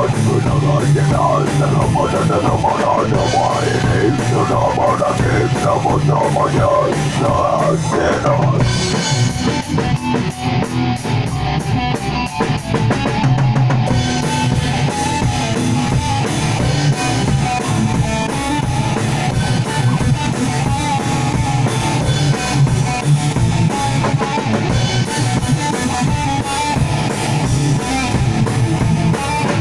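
A rock band playing live: electric guitars over a drum kit, loud and continuous.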